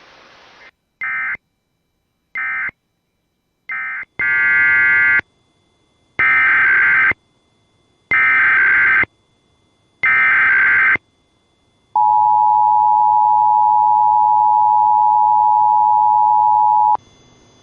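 Emergency Alert System data tones: three short buzzy data bursts, which mark the end of one alert message, then four longer header bursts about a second each. These are followed by the EAS two-tone attention signal, held steady for five seconds before it cuts off.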